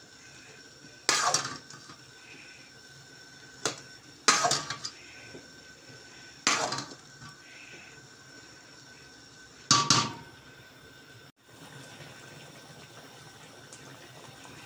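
A cooking utensil clanking against a large aluminium pot of eggplant stew, about five sharp knocks two or three seconds apart, each ringing briefly.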